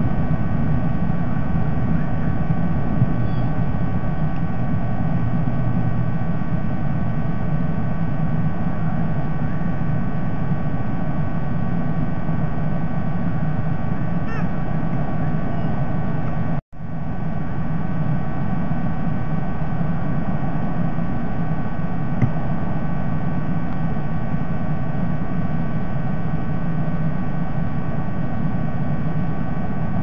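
Steady hum and hiss from the nest camera's audio feed, with a few faint steady whining tones above it. The sound cuts out completely for a split second about halfway through, then comes back.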